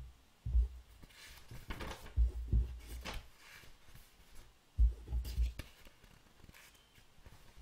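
Printed paper sheets being lifted and turned over by hand: rustling, with several dull thumps, the loudest about half a second, two seconds and five seconds in.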